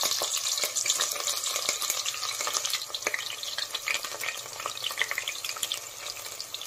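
Sliced onion frying in hot oil with bay leaves and cumin seeds in an aluminium pressure cooker: a steady sizzling hiss full of small crackles that slowly eases off.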